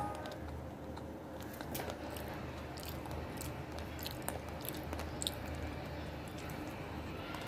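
Gas stove burner running under a steel pan of Maggi noodles in water: a steady low rumble with scattered small crackles and pops from the heating water.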